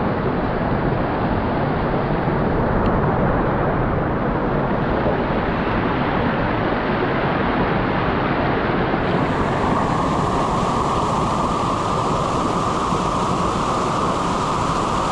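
Waterfall's rushing water, a loud steady noise; it turns brighter and hissier about nine seconds in.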